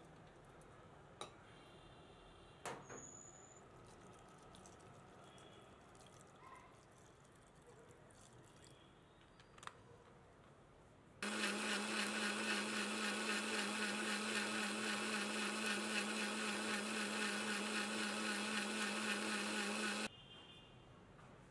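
Electric kitchen mixer grinder running steadily for about nine seconds, starting and cutting off abruptly. Before it, a few light clicks and knocks.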